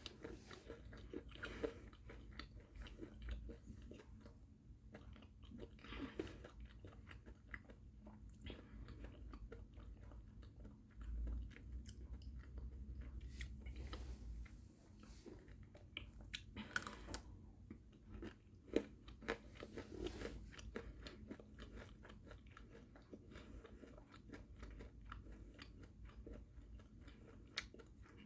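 Faint close-up chewing and crunching of a Dubai-style chocolate bar filled with pistachio cream and crisp kadayif pastry, with scattered small crackles. A low rumble runs for a few seconds partway through.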